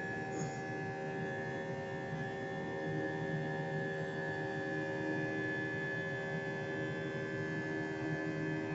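Jet airliner's turbofan engines heard inside the passenger cabin after takeoff: a steady drone with several steady whining tones over it.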